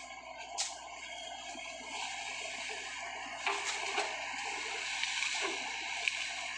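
Sany SY55C mini excavator working in waterlogged peat: a steady hiss of machinery with wet mud sloshing and splattering, growing louder about three and a half seconds in, with a sharp knock near the start.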